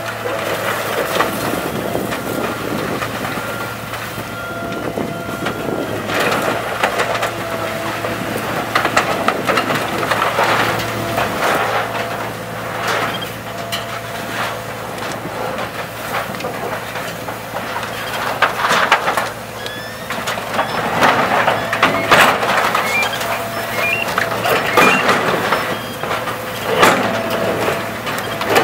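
Sennebogen 825 material handler running with a steady drone while its orange-peel grapple tears down and crushes sheet-metal roofing and walls: repeated crunches, scrapes and bangs of metal, more frequent and louder in the second half.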